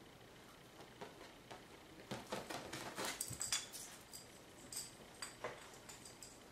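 A small dog's claws clicking and tapping on a hard wood-look floor as it jumps down from an ottoman and scampers about, in a quick cluster of taps about two to four seconds in, then a few scattered ones.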